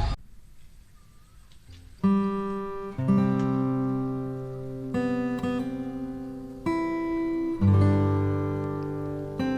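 Background music: acoustic guitar, a few seconds of quiet and then plucked chords that ring out, a new one every second or two.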